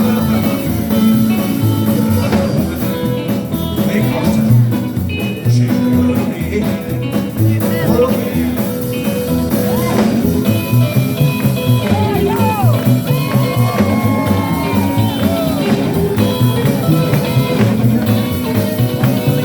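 Live rockabilly band playing an instrumental passage with a steady beat, ahead of the vocals.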